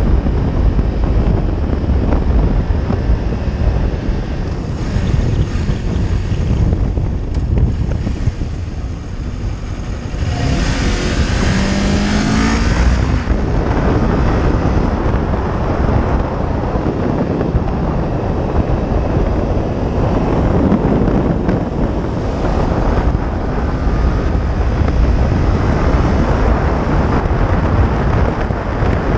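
Sport motorcycle riding at road speed, its engine running under heavy wind buffeting on the microphone. About ten seconds in, the sound gets louder and brighter for a few seconds as the engine revs climb.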